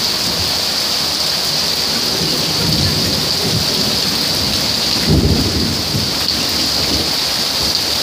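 Hail mixed with rain falling steadily on a concrete yard, a dense even hiss. Low rumbles swell up about three seconds in and again, loudest, about five seconds in.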